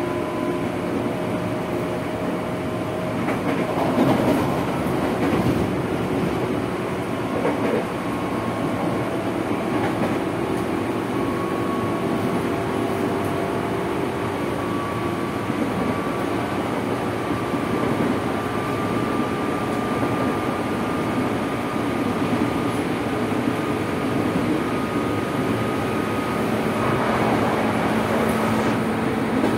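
Running sound of a 205 series electric commuter train heard from inside its motor car, MoHa 205-52. The traction motors give a high whine whose pitch climbs slowly as the train gathers speed, over a steady rumble of wheels on rail. There are a few heavy knocks around 4 and 7 seconds in.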